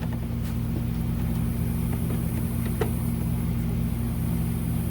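A steady, low mechanical hum, with a couple of faint light clicks.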